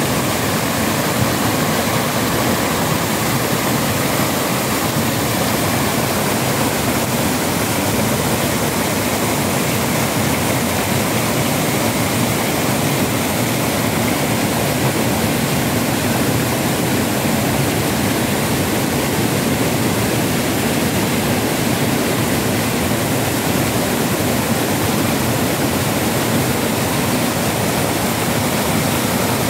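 Water spilling over a stepped stone weir and rushing through rapids over rocks: a loud, steady rush of falling and churning water.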